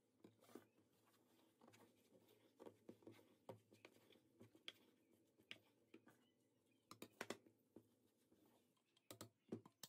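Faint scraping and tapping of a wooden spoon stirring a crumbly ground-pistachio mixture in a non-stick saucepan: irregular small clicks several times a second, with a few louder knocks about seven seconds in and again near the end.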